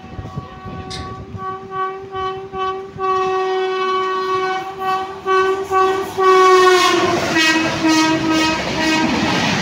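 Rajdhani Express locomotive horn sounding almost continuously as the train approaches at speed. It grows louder, and its pitch drops as the locomotive passes about seven seconds in. The rush and clatter of the passing coaches follow.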